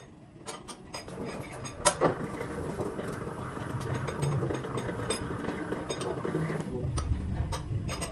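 Three-roll plate bending machine turning a steel sheet as it is curled into a cylinder: a low hum with scattered metallic clicks and knocks, one sharp knock about two seconds in.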